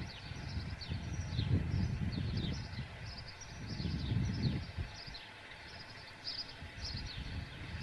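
Outdoor street ambience: small birds chirping over and over with short falling chirps, over a low rumble that swells and fades several times.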